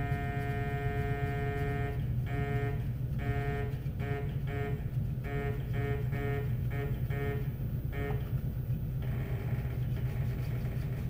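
Tormach 15L Slant-PRO CNC lathe's axis drive whining as the tool holder is jogged in to touch off on a paper feeler. The whine is steady at first, then comes in short pulses about twice a second as the axis is stepped in by small increments, and stops about eight seconds in. A steady low machine hum runs under it.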